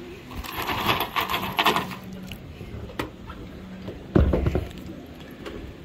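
A hand rummaging in a plastic bag of self-drilling roofing screws: the bag crinkles and the screws clink for a second or two. About four seconds in comes a short, loud thump.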